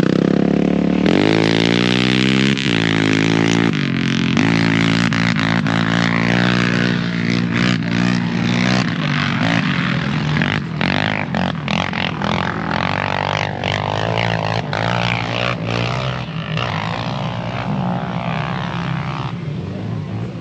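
Sport quad (ATV) engine running close by at a steady idle. In the first few seconds a quad engine revs and falls away as a blue quad rides off down the dune.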